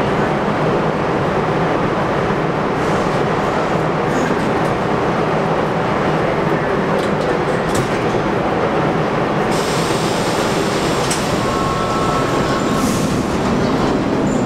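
Budd-built R32 stainless-steel subway train running loudly in an underground station, then pulling out partway through, its steady rumble picking up a higher-pitched edge as it starts moving.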